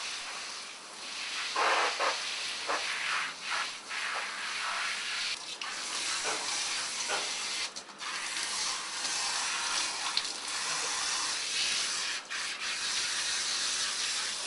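Running water hissing steadily as a dog is rinsed off in a bathtub, with a few brief splashes early on and short breaks in the flow.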